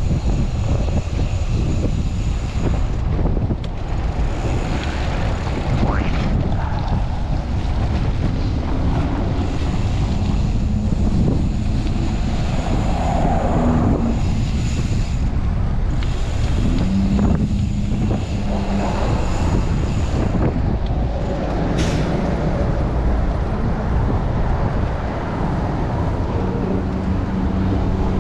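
Heavy wind buffeting a chest-mounted camera's microphone during a bicycle ride in strong gusts, a steady low rumble, with city traffic under it.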